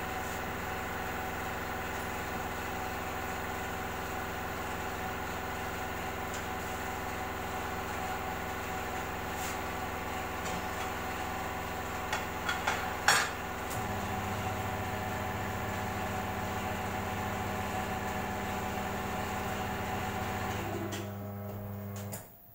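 Electric tyre-changing machine's motor and gearbox running steadily with a hum, as the turntable works a tubeless scooter tyre off its rim. A few sharp metal clanks come about twelve seconds in, the hum shifts slightly just after, and the motor stops near the end.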